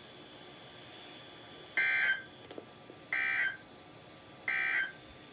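Three identical electronic beeps from a weather radio broadcast, each about half a second long and evenly spaced about a second and a half apart, marking the break between the end of one weather message and the start of the next.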